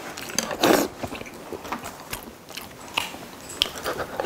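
People eating tteokbokki and gimbap: a string of short biting and chewing mouth sounds, with light clicks of chopsticks and a spoon against plastic takeout containers.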